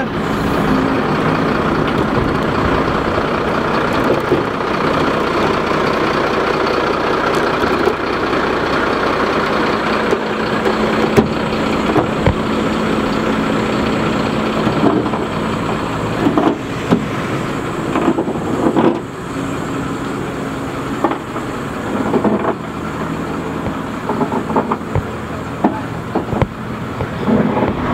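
Flatbed tow truck's engine running steadily while it drives the tilting bed and winch that lower the car, with scattered short knocks and clanks in the second half.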